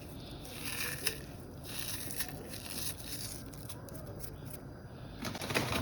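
Faint rustling and crinkling of a packet as dry fried onions are shaken into a pot of stew.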